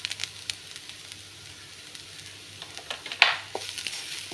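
Grated carrot and vegetables frying gently in oil in a pan, stirred with a spoon that clicks and scrapes against the pan. One louder scrape comes about three seconds in.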